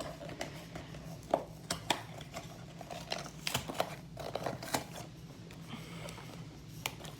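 Small cardboard collectible box being worked open one-handed: scattered scrapes, taps and small clicks of the packaging being handled and pried.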